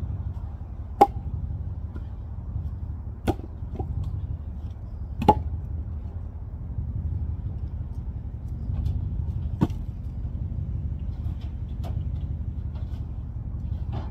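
Wooden knocks of firewood rounds thrown off a trailer bed landing on a pile of logs. There are four sharp ones about one, three, five and nine and a half seconds in, with a few lighter ones in between, over a steady low rumble.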